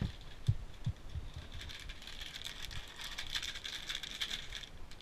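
A couple of dull bumps, then about three seconds of crinkly rustling close to the microphone, which stops shortly before the end.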